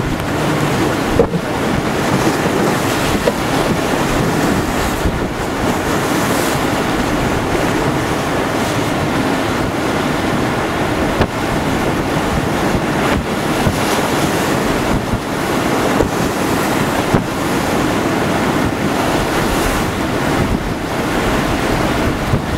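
Hurricane wind blowing hard across the microphone over choppy, whitecapped water, with waves splashing over a flooded dock edge. Loud and steady, with a few brief louder peaks.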